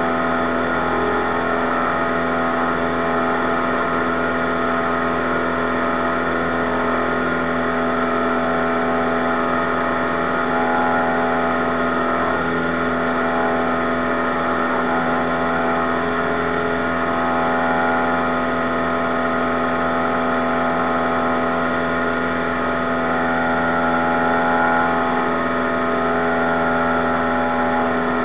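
Cessna 172's piston engine and propeller running steadily in the climb after takeoff, heard inside the cabin as a constant, even drone.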